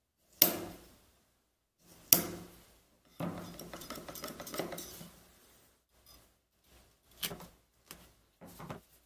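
Rotary leather hole punch pliers being handled: two sharp metal clicks, then a rasping stretch of fine clicking as the tube turret is turned to pick a size, followed near the end by a few lighter clicks as the punch is set on the leather and squeezed.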